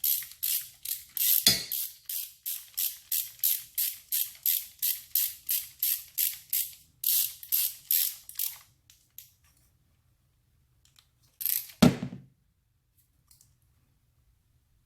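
Ratchet wrench clicking as the 10 mm hold-down bolt of a new ignition coil is run in, a steady run of strokes about three a second that stops about nine seconds in. A sharp knock sounds near the start and another about twelve seconds in.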